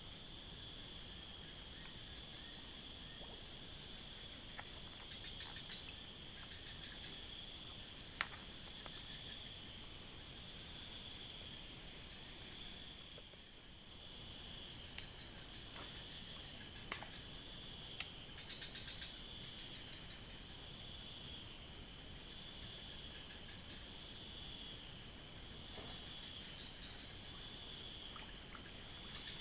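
Steady chorus of insects, a constant high-pitched drone with no break, with a few faint sharp clicks now and then.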